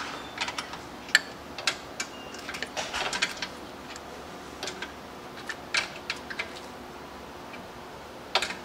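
Irregular metallic clicks and clinks of a combination wrench working bolts on a concrete grinder's metal frame, in short clusters with gaps between. A quieter stretch comes before one last cluster near the end.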